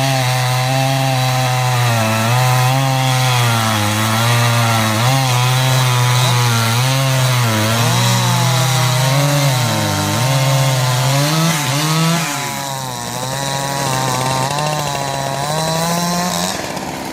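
Two-stroke chainsaw cutting through wood, its engine note sagging under load and picking back up again and again. About twelve seconds in the pitch climbs as the saw frees up, and the sound then eases off a little.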